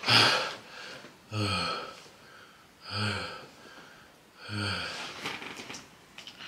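A man's wheezing groans, four of them about a second and a half apart, each a pained out-breath, with his throat burning from very spicy noodles.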